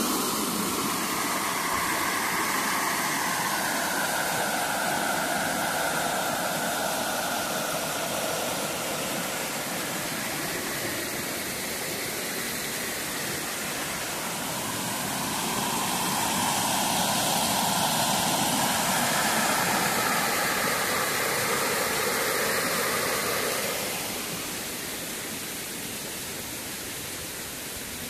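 Small waterfall rushing with a steady noise of falling water, running high and rough. It grows louder for several seconds past the middle, then drops back near the end.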